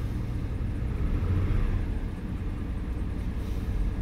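Chevrolet 4.3-litre Vortec V6 in a 2002 Oldsmobile Bravada idling, heard from inside the cabin as a steady low hum. It grows slightly louder for about a second, starting around a second in.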